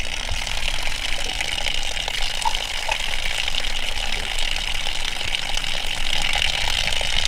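Water running steadily from a fountain spout, a continuous splashing hiss, with a metal water bottle being filled under it at first.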